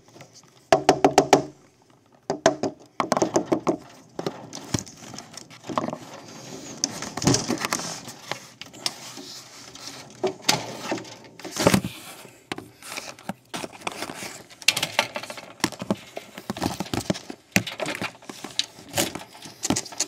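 Window sash and screen being worked by hand: a string of rattles, clicks and knocks, with a fast rattle about a second in.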